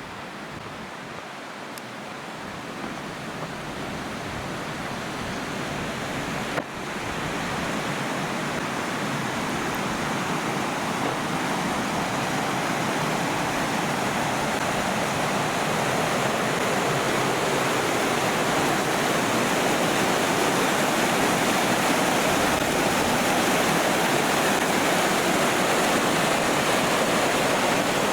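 Rushing creek water: a steady hiss that grows gradually louder, with a single sharp click about six and a half seconds in.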